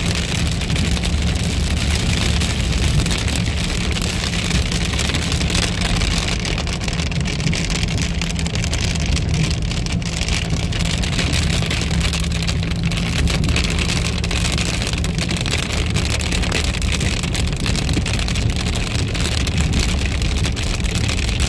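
Car driving on a wet road, heard from inside the cabin: a steady low engine and road rumble with the hiss of tyres on wet pavement and rain on the car.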